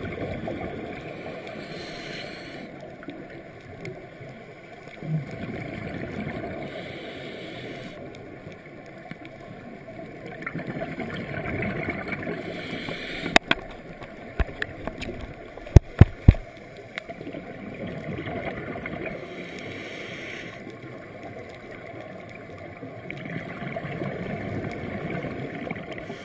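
Scuba regulator breathing heard underwater: bursts of exhaled bubbles gurgling every few seconds over a steady watery hiss. A little past halfway comes a quick cluster of sharp knocks.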